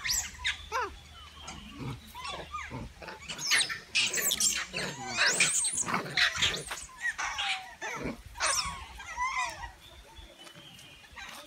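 Long-tailed macaques giving a run of short, high squealing calls that sweep up and down in pitch, thickest from about three seconds in to about nine seconds, then dying away.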